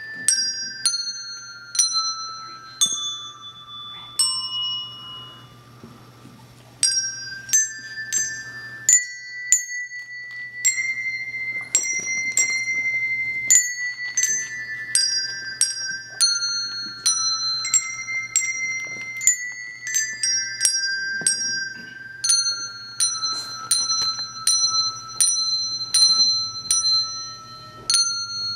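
Handbell choir ringing a melody: bell notes struck one after another, each ringing on under the next. There is a sparse, quieter passage around five seconds in before the fuller ringing resumes.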